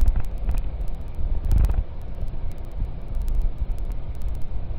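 Wind buffeting a GoPro's microphone as it moves along a dirt road: an uneven low rumble that swells about a second and a half in, with scattered sharp little clicks and pops.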